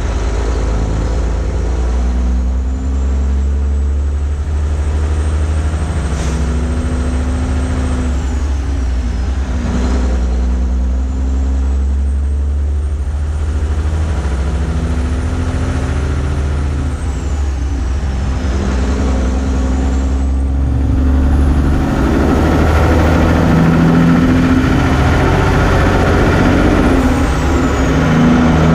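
Diesel engine of a prime mover pulling a loaded cattle road train up through the gears. The engine note and a high turbo whistle climb in each gear and drop at each shift, every few seconds. About three-quarters of the way through it grows louder, with wind and road noise.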